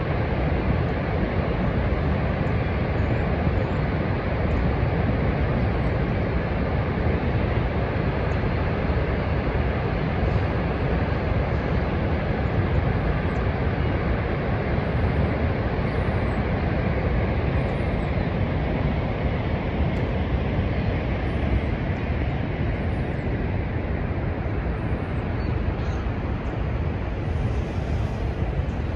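Steady roar of Niagara Falls: a constant rushing noise of falling water, deepest and loudest in the low end.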